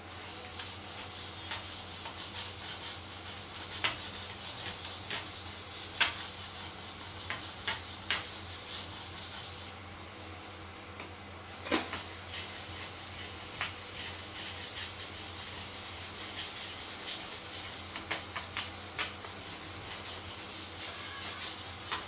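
Blade of a Victorinox Swiss Army knife stroked back and forth by hand across a sharpening stone: a continuous hissing scrape of steel on stone with light clicks. The scraping stops briefly about ten seconds in and starts again after a sharp knock.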